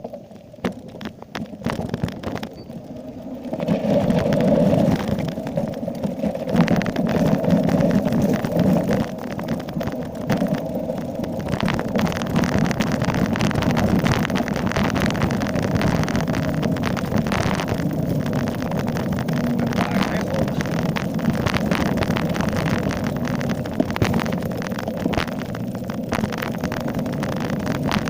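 Mountain bike descending a dirt downhill trail at speed: tyres rumbling over the ground, the bike clattering over bumps, and wind on the camera microphone. It is quieter for the first few seconds, then rises as the bike picks up speed and stays loud.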